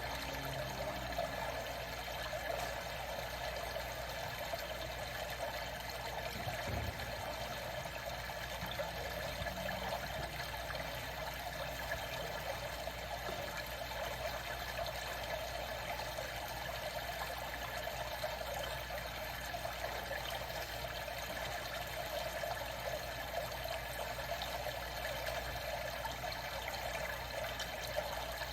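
Running water, a steady even sound that holds throughout, with no separate splashes or regular strokes.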